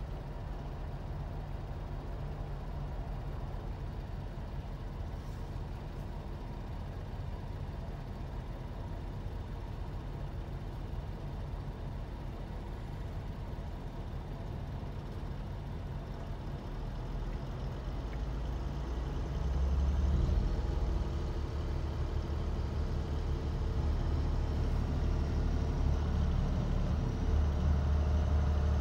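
Heavy engine of a gas well service rig running with a steady low drone, growing louder about two-thirds of the way through and again near the end.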